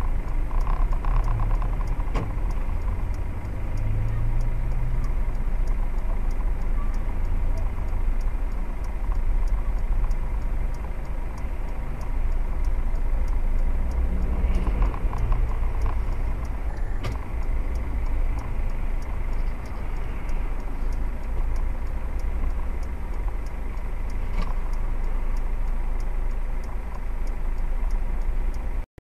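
Vehicle engine idling with a steady low rumble heard from inside the cab, with a faint regular ticking over it.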